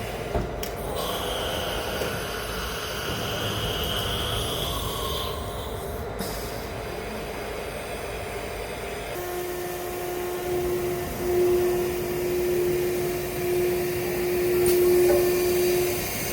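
An automatic tool change CNC router running its machining program: a motor whine with steady tones. A higher whine swells and fades in the first few seconds. From about nine seconds in a strong steady whine joins, and the level rises and falls.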